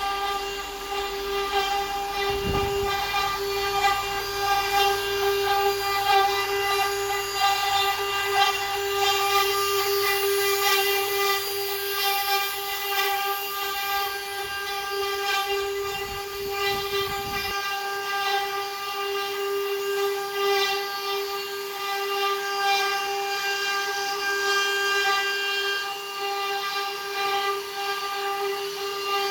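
CNC wood router spindle running with a steady high-pitched whine, with a varying hiss from the cutting over it.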